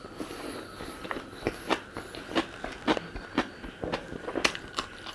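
Close-miked mouth sounds of someone eating hawai thongba, a Manipuri pea curry: sharp, wet chewing clicks and smacks, irregular, about two a second.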